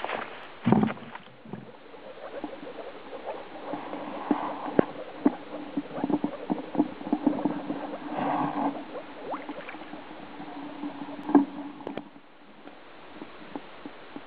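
Footsteps on a wooden boardwalk for about the first second, then a chorus of spawning frogs calling in shallow water: a steady low hum with many short calls over it. The chorus cuts off suddenly near the end.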